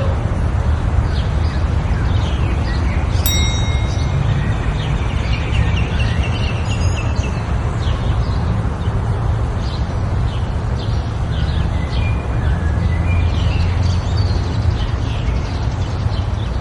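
Birds chirping and calling over a steady low rumble, with one clear whistled call about three seconds in.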